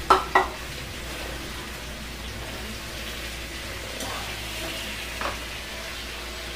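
Pork pieces sizzling as they fry in oil in a pan on a gas burner, a steady hiss. Two sharp knocks just after the start, the loudest sounds here, and a fainter one about five seconds in.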